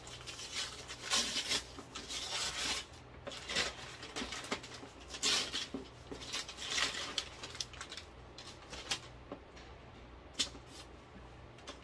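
Paper gift wrapping rustling and crinkling as a present is unwrapped by hand, busiest for the first several seconds, then lighter scattered rustles and taps as the box underneath is handled.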